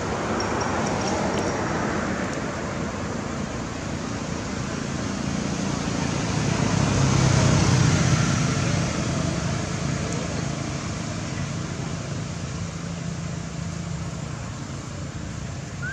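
Road traffic noise, a steady rumble and hiss that swells to its loudest about halfway through as a vehicle goes by, then eases off.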